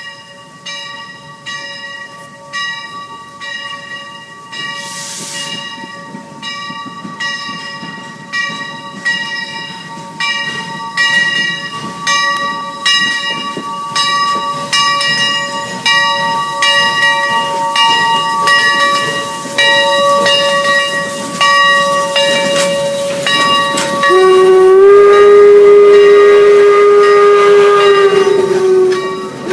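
Steam locomotive's bell ringing steadily, about one and a half strokes a second, growing louder as the train approaches, with a brief hiss about five seconds in. About 24 seconds in, the locomotive's steam whistle blows one long, loud blast that sags slightly in pitch before cutting off, then sounds again at the very end.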